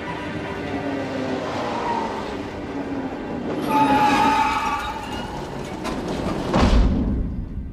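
A large car pulling in with a steady engine rumble. About four seconds in there is a louder squeal, and near the end a sudden loud thump.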